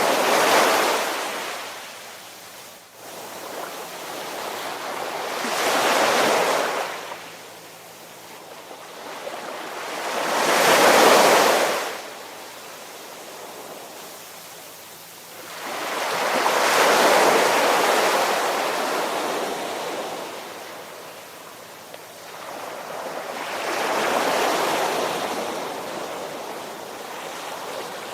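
Ocean waves surging and washing back in slow swells of hiss, about one every six seconds, the biggest a little before the middle.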